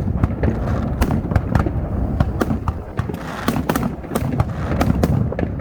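Aerial fireworks going off in rapid, irregular succession: a dozen or more sharp bangs and pops over a constant low rumble.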